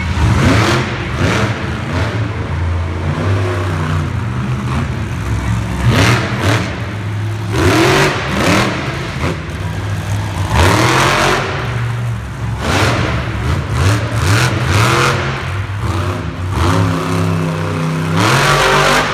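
Monster truck engine revving hard in repeated bursts, its pitch climbing and falling every second or two as the truck drives and turns on the dirt.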